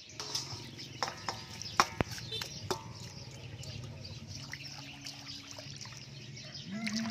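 Tiny raw shrimp being tipped into an aluminium basin of water, with splashing and several sharp knocks against the metal bowl, the loudest about two seconds in. Then hands swish through the water, rinsing the shrimp.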